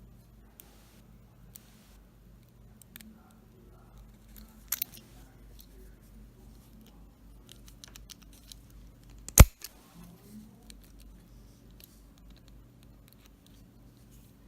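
Scattered small clicks and taps of objects being handled, with a louder double click about five seconds in and one sharp, loud click a little past halfway.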